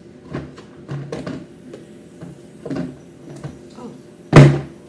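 Plastic body cream tubes being handled and set down on a hard surface: a few light knocks and clacks, then one loud thump about four seconds in.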